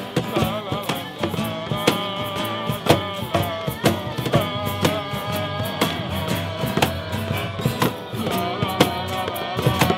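Acoustic blues jam: hand drums (djembes and a box drum) beating out a rhythm under strummed acoustic guitars, with a bowed fiddle line on top.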